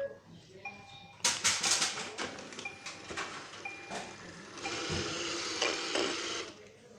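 iRobot Roomba 620 robot vacuum clicking and knocking, with a few short single high beeps, then a steady hiss for about two seconds near the end.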